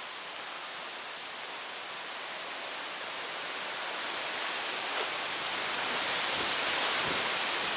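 Stormy wind blowing through garden trees, a steady rushing noise that swells in a gust about six seconds in.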